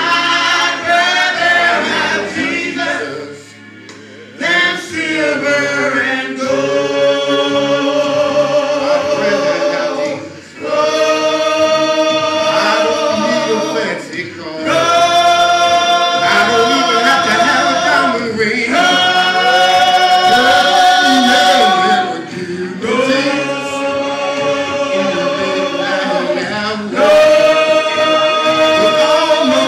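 A small gospel vocal group of three men and a woman singing together in harmony, holding long notes with vibrato, in phrases broken by short pauses.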